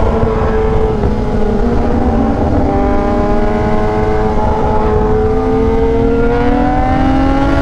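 Inline-four superbike engine at a steady cruise, its revs creeping slowly upward over the last few seconds, under heavy wind rush on the microphone.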